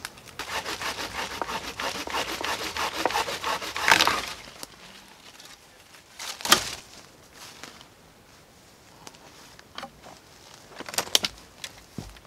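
Folding pruning saw cutting through a branch with fast, even strokes for about four seconds, ending in a loud crack as the wood gives way. A couple of seconds later comes another sharp crack of wood breaking, and a few smaller snaps near the end.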